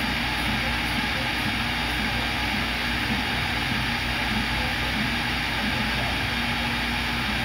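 CNC router's high-speed spindle running steadily with its dust extraction while drilling holes in a copper-clad circuit board.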